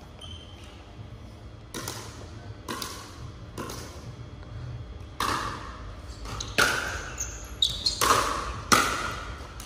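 A pickleball being played in a large echoing hall: a few softer knocks, then from about halfway a series of sharper, louder hollow clacks roughly a second apart as the ball is struck by paddles and bounces on the wooden floor during a rally.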